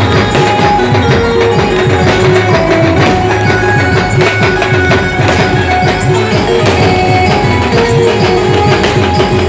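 Band music: a melody of held notes over fast, busy drumming and percussion, loud and steady.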